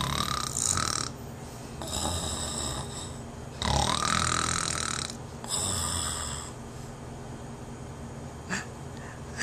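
Baby snoring: four long, hissing snores about a second or more each, coming every second or two, then quieter with a small click near the end.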